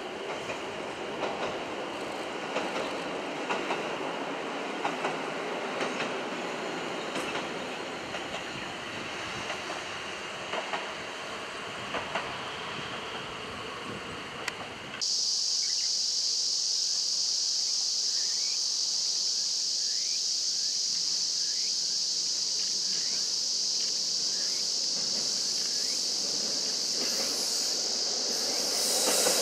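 KiHa 40 diesel railcar running at a distance over a steel girder bridge: a steady rumble with scattered clicks and knocks from the wheels. About halfway the sound changes abruptly to a steady high-pitched hiss, and near the end the railcar comes closer and the sound grows louder.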